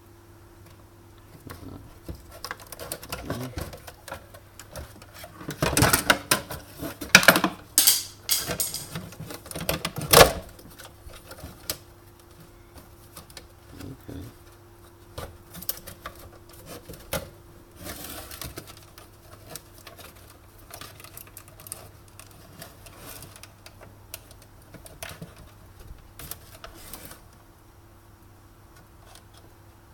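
Scattered clicks, taps and knocks of hand tools on the plastic and metal parts of an espresso machine being dismantled, with a busier stretch of louder knocking and rattling from about six to ten seconds in. A faint steady hum runs underneath.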